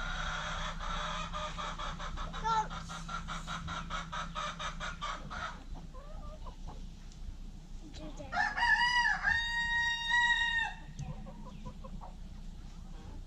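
Chickens clucking for the first few seconds, then a rooster crows once, a long held call about eight seconds in that is the loudest sound.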